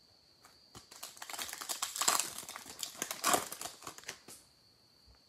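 A Panini Select football card pack's foil wrapper being torn open and crinkled by hand: a dense crackling that starts about a second in and lasts about three seconds.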